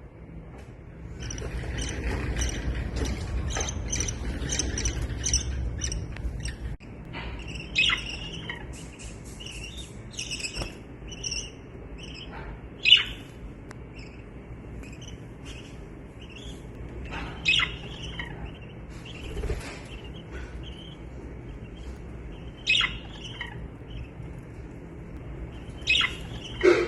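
Budgerigars chirping, with sharp, short squawk-like calls every few seconds and softer chatter between them. A stretch of low rumbling noise runs under the first six seconds.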